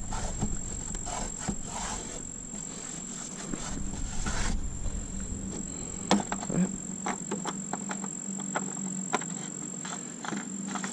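A few light clicks and knocks, the sharpest about six seconds in, over a steady high-pitched tone and a low background rumble in the first half.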